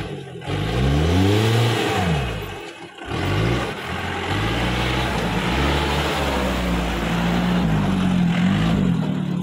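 Engine of an off-road jeep revving up and down on a dirt track, its pitch rising and falling several times. It briefly drops away about three seconds in, then runs at a steadier, higher speed with small rises and falls.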